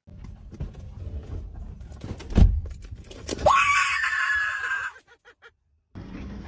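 A thump about two seconds in, then a person screaming in fright: a sharp rising shriek held for about a second and a half. Before it there is a low rumbling noise, and the sound cuts off abruptly.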